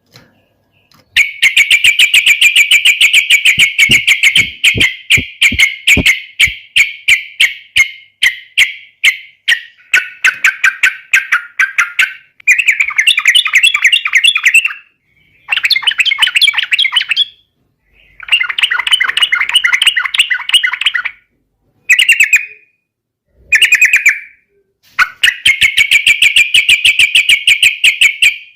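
Yellow-vented bulbul (trucukan) in full song: bursts of fast, rapidly repeated chattering notes, about a dozen bursts of one to four seconds each with short pauses between.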